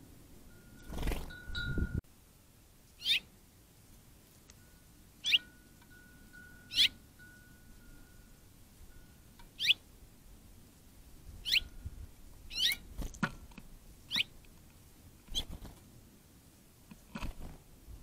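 Small songbirds calling: about ten short, sharp call notes, each a quick slide in pitch, spaced a second or two apart.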